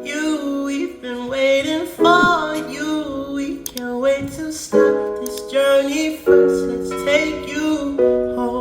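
Background music: a song with a sung vocal over held keyboard chords.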